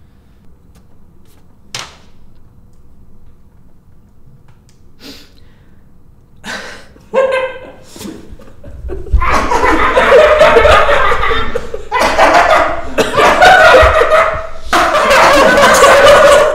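A man's wordless vocal outburst. After a few quiet seconds with a couple of soft clicks, his voice rises about seven seconds in and becomes very loud from about nine seconds, going on in long cries with short breaks.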